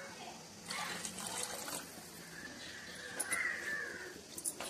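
Watery rice and chicken masala sloshing in a metal pot as a spatula stirs it, with small clicks of the spatula and a short wavering high-pitched tone around the middle.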